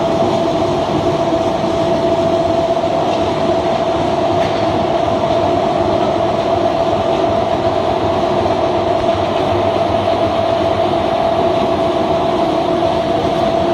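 Ring-die organic fertilizer granulator running steadily: a loud, even mechanical rumble with a steady whine on top.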